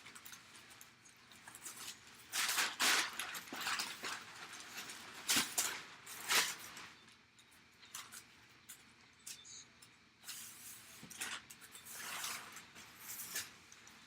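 Packaging being handled and unwrapped: irregular rustling and crinkling, with several louder bursts in the first half and softer ones later.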